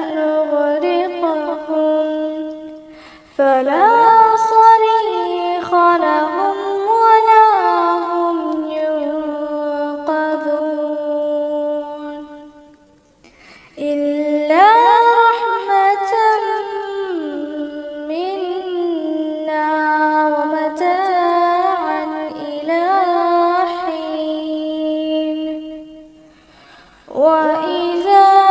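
Quran recitation in Arabic in a high female voice, chanted melodically with long held, ornamented notes. It runs in long phrases broken by short pauses about 3, 13 and 27 seconds in.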